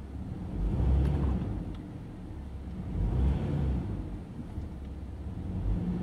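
Toyota Tacoma's 1GR-FE V6 engine running rough, heard from inside the cab: a low rumble that swells and eases a few times as it is held under load against the brakes. Rough running under load is the sign of an occasional cylinder 3 misfire, blamed on a failing ignition coil.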